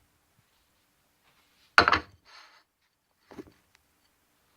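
Kitchenware handled on a countertop: one sharp, loud clack about two seconds in, a short scrape right after, and a lighter knock a little later.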